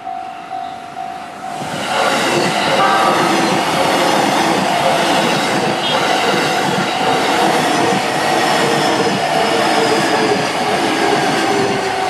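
Level-crossing warning bell ringing in quick repeated dings; about a second and a half in, a JR E233-series electric commuter train arrives and passes close by, its wheels and running gear loud and steady on the rails, with the crossing bell still ringing beneath.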